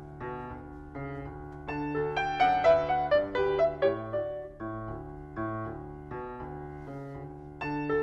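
Instrumental piano music: a melody of struck, fading notes over held low bass notes. It swells about two seconds in, softens after about four seconds and swells again near the end.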